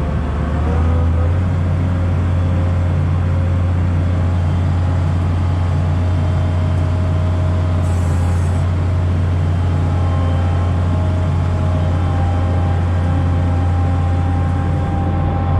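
Case IH 1660 combine's diesel engine running steadily, its speed picking up slightly about a second in.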